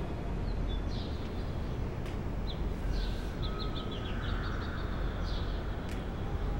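Outdoor ambience: small birds chirping in short, high calls, with a quick run of chirps about three to four seconds in, over a steady low rumble.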